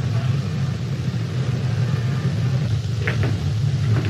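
Steady low hum and rumble of an early-1930s optical film soundtrack, with a few faint clicks about three seconds in.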